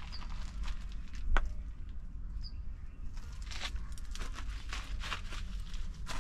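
Footsteps on a park path over a steady low rumble, with a sharp click about a second and a half in as the loudest sound. Two brief high bird chirps come near the start and about two and a half seconds in.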